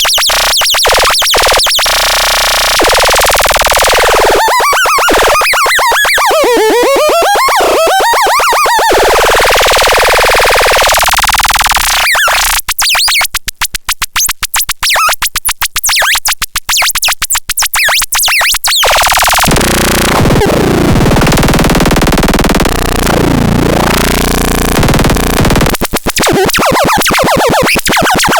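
LEBKOTRON electronic noise synthesizer making harsh, loud buzzing tones. It warbles in up-and-down pitch sweeps, breaks into rapid stuttering pulses, and near the end swoops down and back up in pitch.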